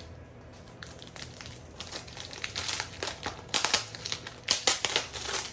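Plant shipping packaging being unwrapped by hand, with irregular crinkling and crackling that grows busier and louder in the second half.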